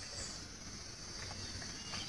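Steady, high-pitched chirring of insects in chorus, faint and unbroken.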